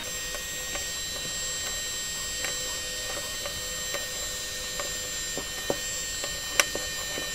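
DeWalt cordless heat gun running steadily, a motor whine over a blowing hiss, shrinking plastic wrap onto a pack of 18650 lithium cells. Light clicks and taps come through now and then.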